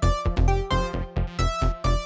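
Electronic background music with a steady beat and a melody of short notes stepping up and down.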